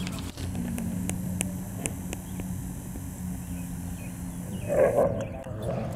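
Dogs playing; a dog gives one short, loud play-growl about five seconds in, over a steady low hum.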